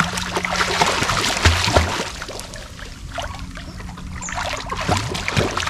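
A child swimming in a life jacket, arms and legs splashing river water in quick, uneven splashes, with two low thumps about a second and a half in and a faint steady hum underneath.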